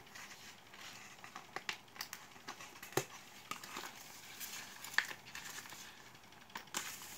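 A power bank's cardboard box being handled and a USB cable pulled out of it: light rustling and crinkling with scattered small taps and clicks, the sharpest about three and five seconds in.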